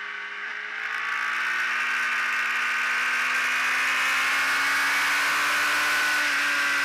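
Ducati Streetfighter's V-twin engine pulling hard in gear, heard onboard over heavy wind rush. About a second in it gets louder as the throttle opens, and its pitch then climbs slowly and steadily.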